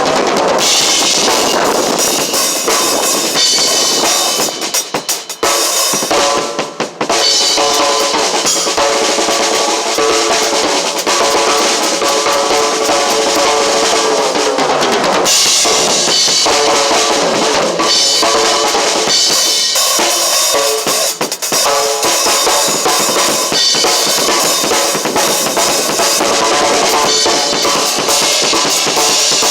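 Drum kit played continuously, with bass drum and snare strokes, and brief drops in level about five and seven seconds in.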